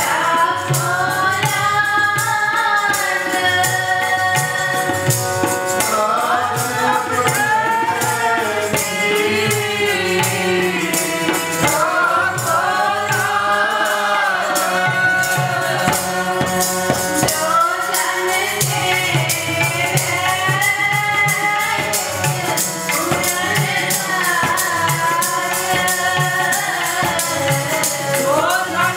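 Sikh kirtan: a woman's voice leads the hymn over a harmonium's held chords and a tabla's rhythm, and the group joins in the singing.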